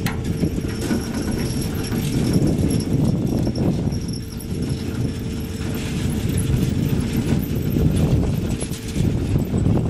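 Riding an open basket lift: wind buffeting the microphone over an irregular clatter from the lift's haul cable and tower sheaves, with a faint steady hum that stops near the end.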